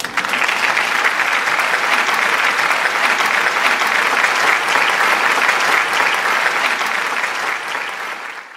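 Applause, many hands clapping in a dense, steady patter that starts suddenly, eases off slightly near the end and then cuts out.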